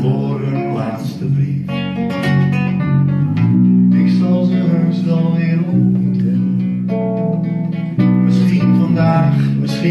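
Live band music: a strummed acoustic guitar over electric bass guitar notes, playing continuously through the song.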